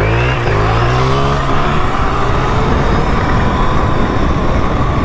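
Electric dirt bike accelerating flat out across grass, with heavy wind rush on the microphone over a faint steady motor whine. A pitched motor sound falls away during the first second or so.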